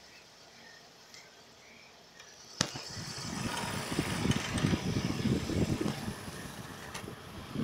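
A click about two and a half seconds in, then a homemade PVC fan's 12-volt motor running, its blown air buffeting the microphone in uneven gusts.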